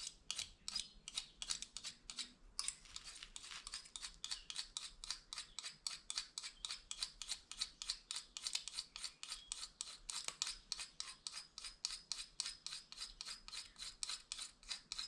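Plastic fork scraping rapidly back and forth against the edge of a plastic spoon to sharpen it: a steady, rhythmic rasping at about four strokes a second.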